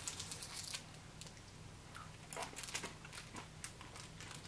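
Faint crinkling and a scattered series of soft clicks and crunches as a small MRE peppermint is unwrapped and eaten, over a low steady hum.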